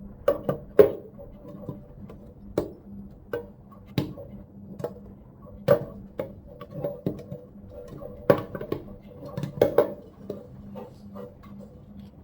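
Plastic drinking-water bottle and its packaging being handled: irregular sharp clicks, taps and knocks, several close together about a second in and again around eight to ten seconds in. A faint steady hum runs underneath.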